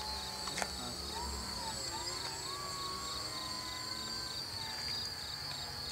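Steady high-pitched trill of crickets, pulsing evenly and quickly, with the faint whine of a radio-controlled model airplane's motor that wavers up and down in pitch as the plane flies.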